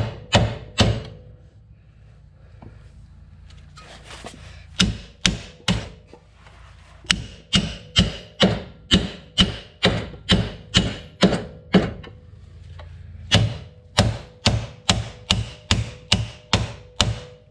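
Hammer blows on a rusted front wheel hub and steering knuckle, sharp and evenly paced at about two to three a second. They come in runs with short pauses between. This is work to break the remains of a worn-out, collapsed front hub bearing out of the knuckle.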